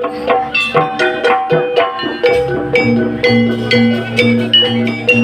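Jaranan gamelan music: struck metallophones ringing a fast repeating pattern of notes over drums and a steady low tone.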